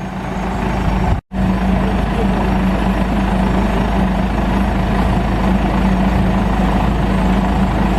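Combine harvester's diesel engine running steadily at working speed, a continuous heavy machine drone with a steady hum, cut off briefly about a second in.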